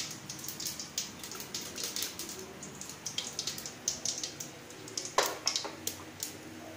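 Cumin seeds and panch phoron spluttering and crackling in hot oil in a pressure cooker: a tadka being tempered, with many irregular pops, and a louder knock about five seconds in.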